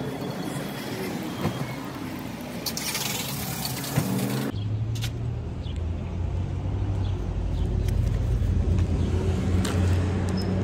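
Car and traffic noise around a parking lot, with a few scattered light steps and clicks. About four and a half seconds in, the sound changes abruptly to a steady low engine-like hum that runs on under occasional ticks.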